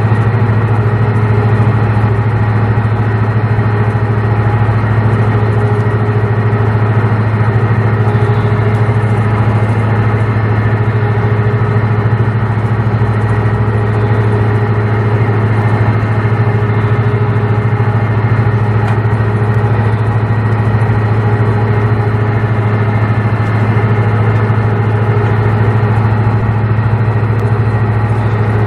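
A ship's engine running at a steady speed: a loud, unchanging low drone with a constant hum.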